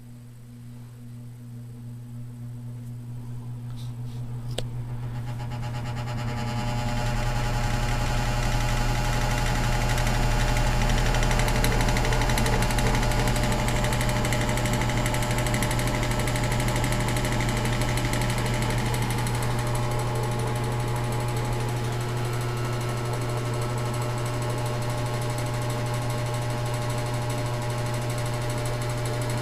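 Signal box fan's electric motor switched on at high speed: a strong steady motor hum while the blades spin up, the whoosh and rattle of the fan growing louder over the first several seconds before it settles into a steady run. The owner says this motor has been hard to start and nearly stalls on low.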